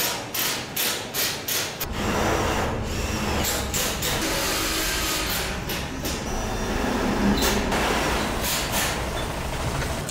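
Construction-site machinery: a quick run of rhythmic mechanical bursts, about three a second, for the first two seconds, then a steady engine rumble with intermittent hissing bursts over it.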